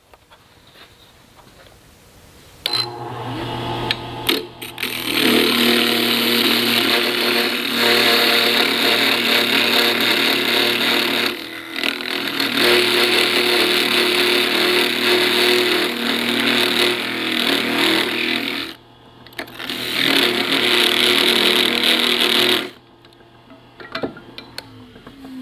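A wood lathe's motor starts up with a low hum, then a parting tool cuts into the spinning ash workpiece: a loud, steady cutting noise that breaks off briefly twice and stops near the end while the lathe keeps running.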